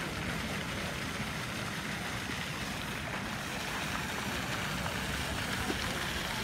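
Fountain jets splashing down into a stone basin: a steady rushing hiss with a low rumble underneath.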